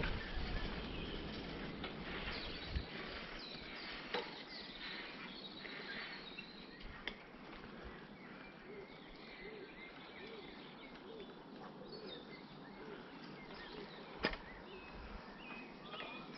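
Bicycle tyres rolling over light gravel with an even hiss and a few sharp ticks, while birds sing with short chirps throughout. The low rumble of the ride drops away after about three seconds.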